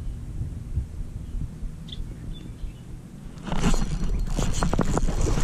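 Low wind rumble on the microphone, then about three and a half seconds in a sudden burst of splashing and rustling with a few sharp clicks as a hooked largemouth bass is pulled from the shallow pond water onto the grassy bank.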